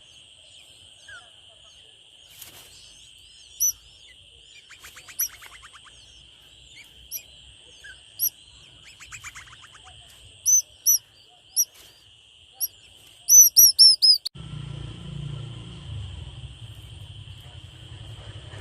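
Nestling birds chirping in the nest, begging for food: single sharp high chirps every second or so, two raspy buzzing calls, then a quick run of five loud chirps about 13 seconds in. A steady high-pitched hum runs underneath, and a low rumble comes in near the end.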